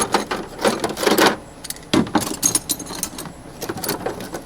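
Metal hand tools such as vise grips and pliers clinking and clattering as they are handled and set into a toolbox: a string of irregular metallic clanks.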